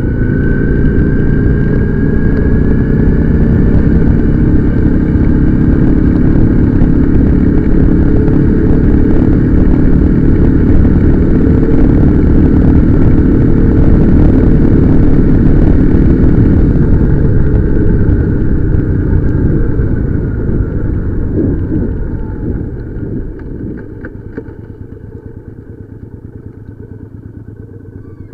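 Motorcycle riding at speed: the engine running under load with heavy wind noise, its tone gliding slightly. About twenty seconds in it eases off, and the sound falls away over a few seconds to a much quieter, steady low engine note as the bike slows.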